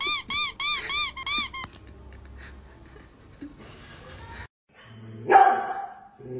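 A rapid run of squeaky-toy squeaks, about three a second, each a short rising-and-falling tone, stopping about one and a half seconds in. Near the end, a single loud dog bark.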